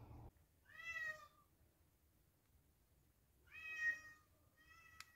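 A cat meowing three times, short and faint, with the last meow the weakest, followed by a brief click near the end.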